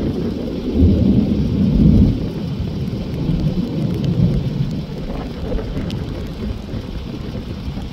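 Thunder from a severe thunderstorm: a long, low rolling rumble that swells about a second or two in and then slowly fades, over a light hiss of rain.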